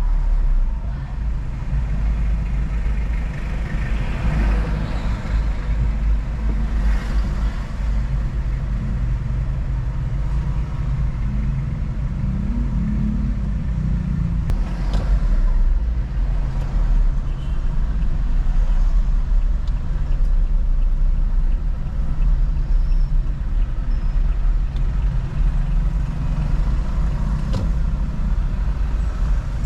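A car driving: steady low rumble of engine and road noise, swelling a little now and then.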